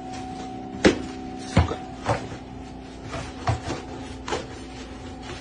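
A thin stick knocking and scraping against a wooden floor and the base of an appliance as it is poked underneath, with about five sharp knocks and some fainter taps, over a steady low hum.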